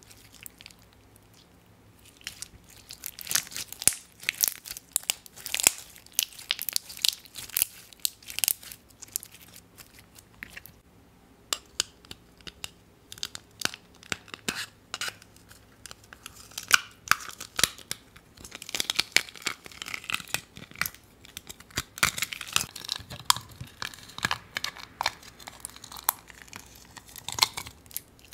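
Clear slime full of crunchy blue and white bits being squeezed by hand and then dug out of a plastic jar with a spatula, giving dense crunching and crackling. It starts about two seconds in, with a short lull near the middle.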